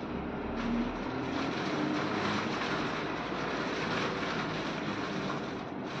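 Steady rushing ambient noise, with a faint hum that rises a little in pitch during the first two seconds.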